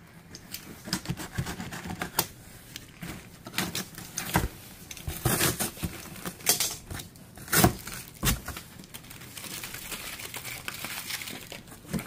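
Cardboard box being opened by hand: a box cutter slitting the packing tape, cardboard flaps bending and knocking, and plastic wrap crinkling, with a run of sharp knocks and short tearing rasps.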